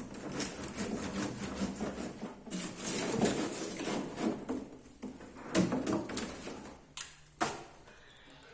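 Busy clattering and scraping of a refrigerator being washed out and cleared of ice, with a few sharp knocks near the end.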